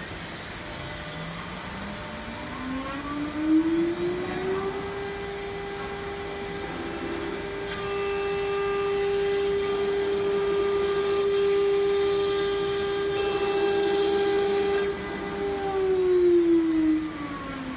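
Mini 6090 CNC router's electric spindle spinning up with a rising whine, running steadily at high speed, then winding down with a falling whine near the end. For several seconds in the middle, a hiss of the bit cutting the MDF board joins the whine.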